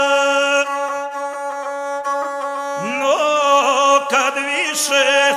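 Gusle, the single-string bowed folk fiddle, sounding a steady nasal tone under a male epic singer. His held note ends about half a second in, leaving the gusle alone. About three seconds in his voice slides up into a wavering, ornamented wordless phrase.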